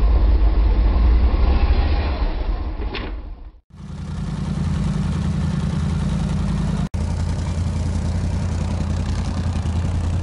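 ATV engine running as the quad works through deep snow, a low heavy rumble. The sound drops out briefly about three and a half seconds in and again for an instant near seven seconds; after the first dropout the engine holds a steady drone.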